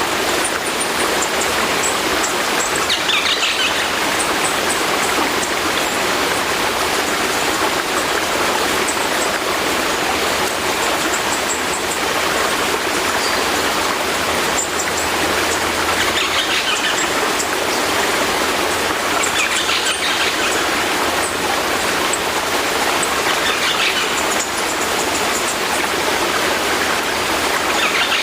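Sea surf washing in a steady, even rush with no distinct wave surges, and faint brief high-pitched sounds every few seconds.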